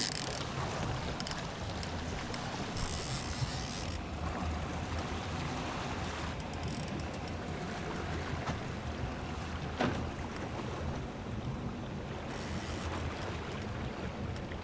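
Small fishing boat's engine running steadily at trolling speed under wind and water noise, with a few short bursts of hiss and a single knock about ten seconds in.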